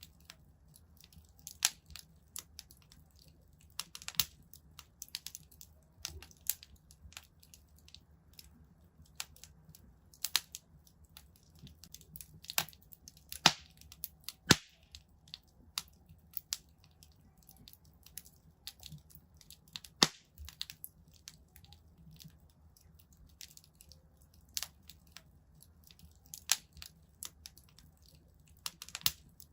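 Wood fire in a fireplace crackling, with irregular sharp pops and snaps, a few louder ones near the middle, over a faint low hum.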